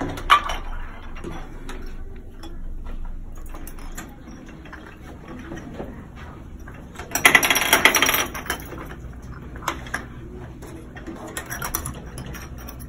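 Hard plastic cups clicking and tapping as they are picked up, stacked and set down on a wooden table, with craft sticks laid between them. About seven seconds in there is a louder clatter lasting about a second.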